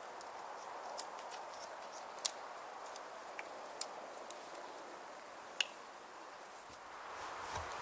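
Faint steady outdoor hiss with a few sharp isolated clicks and ticks of dry wood, as feather sticks and kindling are handled and set down.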